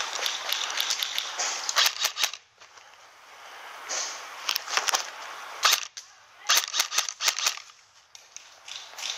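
Airsoft gunfire: sharp cracking shots in short groups, several shots at a time, spread through with quieter pauses between.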